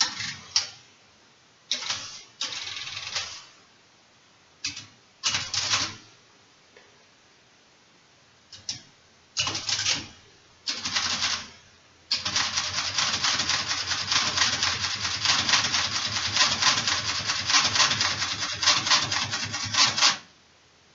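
1954 Hamann 300 ratchet-type mechanical calculator: several short bursts of mechanical clatter in the first half, then about eight seconds of continuous rapid clatter as it works out 1 divided by 3, which stops abruptly near the end.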